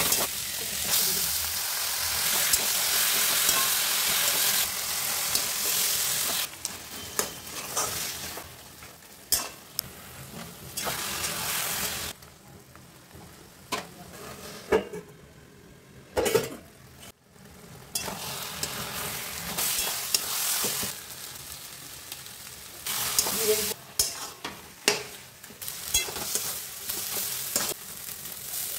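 A taro-leaf and chickpea mixture sizzles in a wok while a spatula stirs it and scrapes against the metal, with a few sharp knocks of the spatula on the pan. The sizzle is loud at first, falls much quieter for several seconds past the middle, then picks up again.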